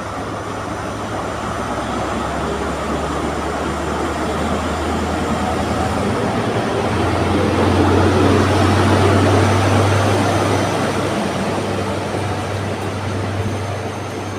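Class 43 HST diesel power car pulling a train out of the station, its MTU V16 diesel engine giving a low steady drone under load. The sound is loudest about halfway through as the power car draws past, then eases to the rumble of the passenger coaches rolling by on the rails.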